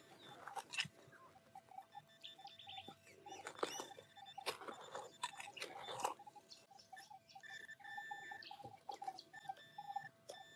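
Garrett Pro-Pointer AT pinpointer beeping in a quick pulsing tone as it is worked through the loose soil of a dug hole, signalling metal close by. Scrapes and knocks of digging in the dirt, mostly in the middle.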